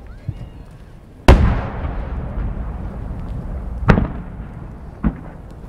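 Large No. 10 (10-gō) aerial firework shells bursting: a loud boom about a second in that rolls on for a couple of seconds, a second boom near four seconds, and a smaller bang about five seconds in.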